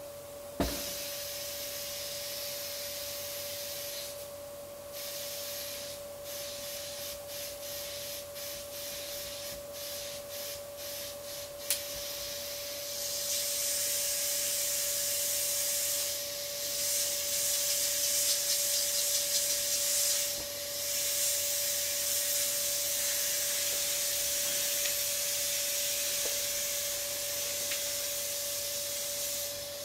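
Air hissing out of the open valve of a vinyl inflatable swan as it deflates. It sputters in a rapid flutter at first, then after about thirteen seconds settles into a louder, steadier hiss, with a sharp click near the start and another about twelve seconds in.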